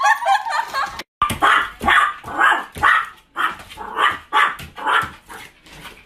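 Small dog barking repeatedly, about two sharp barks a second, while jumping at a front door as mail comes through the letter slot.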